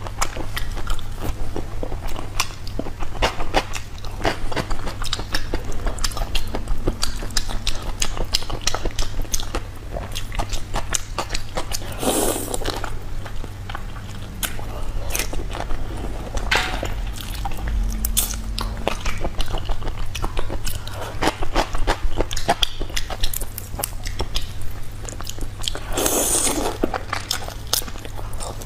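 Close-miked eating of whole shrimp in a soy marinade: shells crunching and cracking between the teeth, with wet chewing and sucking at the shrimp. Two longer slurping sounds come about twelve seconds in and near the end, over a low steady hum.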